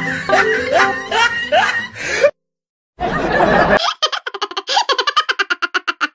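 Xylophone-type background music with repeated rising whoops, cut off after about two seconds. After a short pause comes a brief noisy burst, then a cartoon cat character's high-pitched giggling laugh. The laugh is a fast run of short pulses that falls in pitch and fades out.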